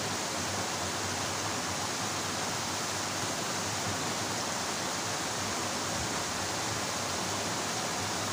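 Steady rushing of a small stream's white, turbulent water.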